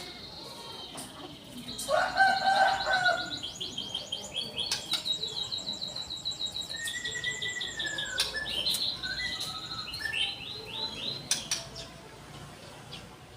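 Canary singing a long song of fast rolling trills and repeated high chirps. A louder, lower-pitched call cuts in briefly about two seconds in.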